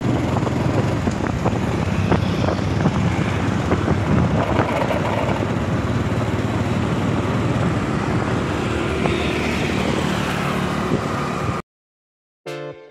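Road and traffic noise heard from a moving vehicle: a loud, dense rumble. It cuts off suddenly near the end, and piano music begins.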